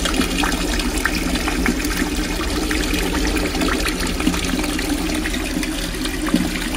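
Water running and trickling into a field-drain manhole, with small splashes throughout, over a steady low hum.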